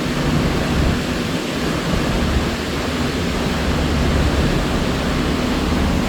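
Steady roar of wind buffeting the microphone on a cruise ship's open deck, over a constant low hum of the ship's machinery.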